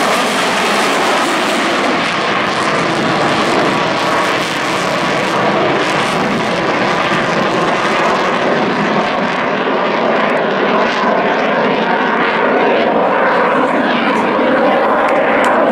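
Jet noise from US Navy EA-18G Growlers' twin F414 turbofan engines, loud and steady as the jets climb and pass overhead.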